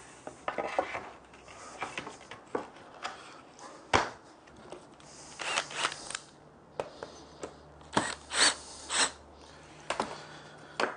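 Wood and hand tools being handled on a workbench: scattered knocks and clatter, with a sharp knock about four seconds in and a few short scrapes later on.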